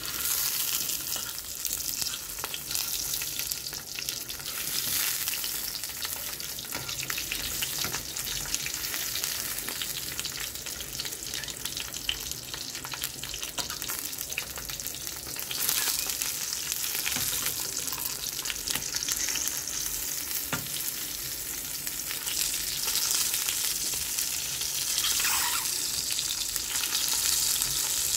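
Sausages frying in hot oil in an aluminium frying pan: a steady sizzle full of small pops, with now and then a fork moving and turning the sausages in the pan.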